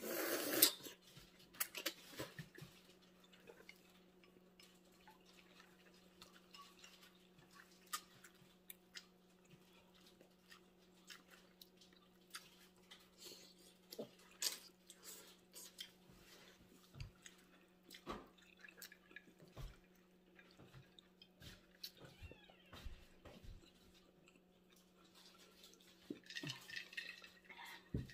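A loud slurp of noodles right at the start, then quiet chewing and small mouth clicks, over a steady low hum.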